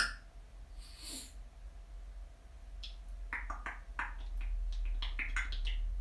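African grey parrot making soft clicks and a breathy hiss, then, from about three seconds in, a quick run of short clicking, chattering sounds that grows louder: the bird grumbling to itself.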